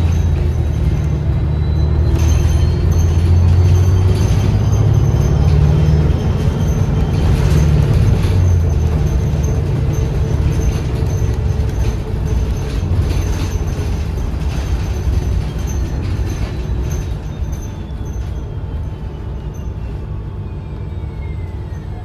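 A 2013 New Flyer XDE40 diesel-electric hybrid bus under way, heard from inside the bus. A low, steady engine drone runs throughout, with a thin whine from the electric drive. The whine rises in pitch as the bus speeds up, then falls again from about three-quarters of the way through as the bus slows.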